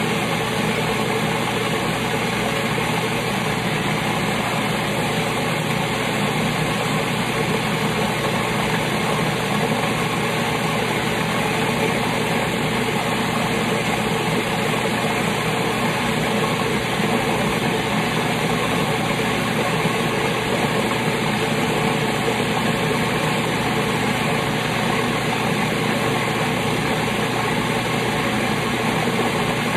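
Old Cuisinart food processor running steadily, its blade whirring through a full bowl of thick green sofrito puree.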